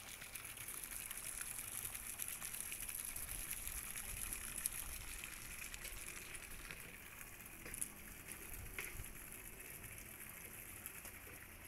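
Faint harbour water lapping and trickling against moored boats and the quay, with a few small splashes.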